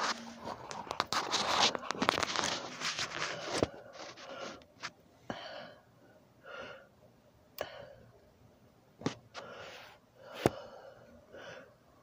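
Rustling and scraping handling noise close to the microphone for the first few seconds. Then a person's breaths come close to the microphone, about one every second or so, with a few sharp clicks between them.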